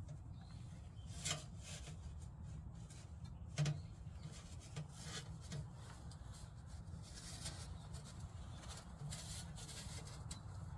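Metal chimney pipe scraping and rubbing against the bricks and wet mortar of a brick firebox as it is worked into place. There are two sharp knocks in the first four seconds and longer rubbing scrapes later, over a steady low rumble.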